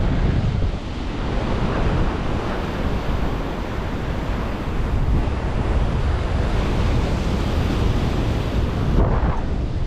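Heavy ocean swell surging and washing against rocks, with strong wind buffeting the microphone and a steady low rumble throughout.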